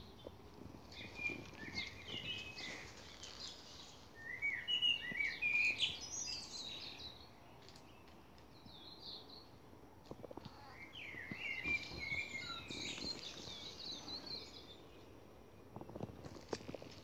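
Songbirds singing in quick chirping, warbling phrases, loudest about four to seven seconds in, with another run of song from about eleven to fifteen seconds. A few soft knocks sound near the end.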